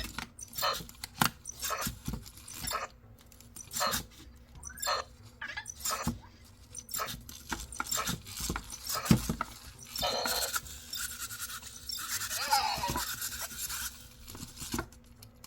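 EMO pet robot's small motors clicking and tapping in quick, irregular strokes as it keeps repeating the same motion without stopping, a glitch that sets in after it comes off its charger. Short electronic voice chirps, one falling in pitch, come about two thirds of the way through.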